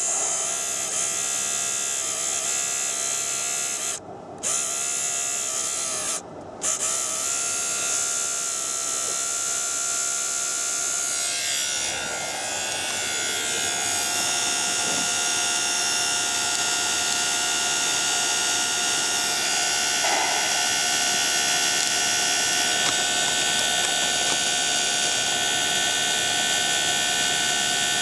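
Small electric pump on a model tanker trailer whining steadily as it pumps water out through a hose. It cuts out briefly twice in the first seven seconds, and about twelve seconds in its pitch shifts slightly before it runs on steadily.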